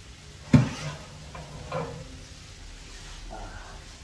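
A single sharp knock about half a second in, then faint handling sounds.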